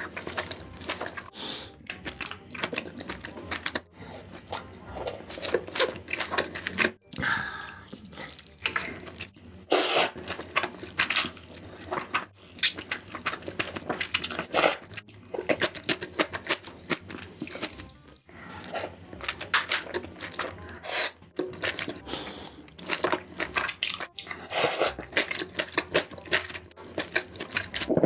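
Close-miked ASMR eating: noodles in spicy kimchi soup being slurped and chewed wetly, in repeated bursts of slurps and smacking, clicky mouth sounds.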